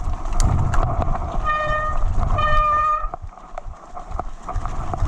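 Mountain bike brake pads squealing twice, each a high, steady tone about half a second long, over the rumble of tyres rolling on a wet, muddy trail that fades after the second squeal. The pads are hot and wet from the rain, which makes them squeal like this.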